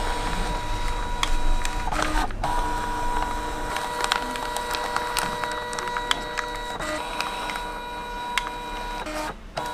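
Fujitsu ScanSnap S1300i sheet-fed document scanner feeding paper, its motor running with a steady whine and light clicks. It stops briefly about two seconds in and again near the end.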